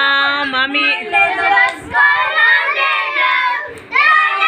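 Several children singing together loudly, starting on a long held note.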